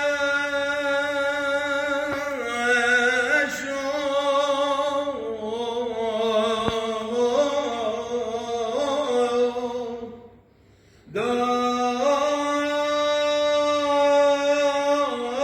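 A solo male voice chanting a Syriac church hymn, with long held notes and ornamented turns in the melody. It breaks off briefly about ten seconds in, then resumes.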